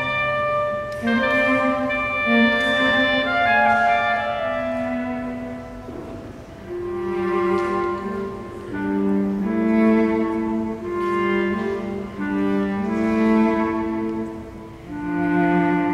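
Clarinet and cello playing a contemporary classical duet, the clarinet's melody leading at first. About six seconds in the music dips briefly, then lower sustained notes come forward beneath the clarinet.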